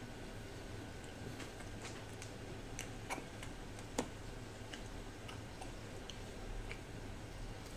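Scattered small clicks and mouth noises of close-up eating: chewing soft bread, and a metal spoon scraping and tapping in a plastic tub of vanilla ice cream. The sharpest click comes about four seconds in, as the spoon digs into the tub.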